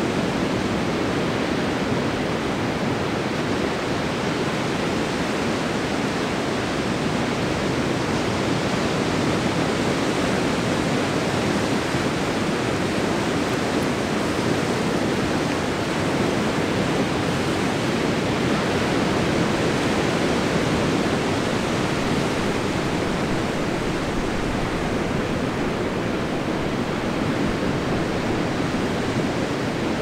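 Ocean surf: a steady, even wash of breaking waves with no single wave standing out.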